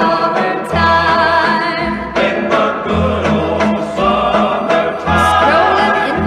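Old-time popular song recording: a group of voices singing together over band accompaniment, with a bass line sounding about once a second.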